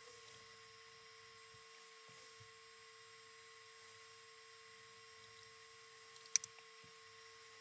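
Faint steady electrical hum with a high whine over it, under light handling rustle; two sharp clicks land close together about six seconds in, followed by a smaller one.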